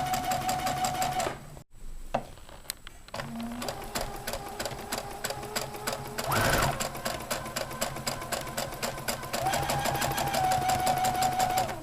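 Electric sewing machine stitching a seam, its needle ticking in a fast even rhythm over the motor's hum. It stops about a second in with a click, then starts again and runs steadily, the motor tone rising near the end. This is the stop-and-restart of backstitching at the start of a seam. A short louder burst of noise comes a little past halfway.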